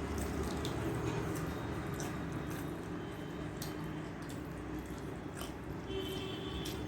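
Close-up eating sounds of rice and fish curry: wet chewing, mouth clicks and squishing, heard as scattered short sharp clicks over a steady low background hum.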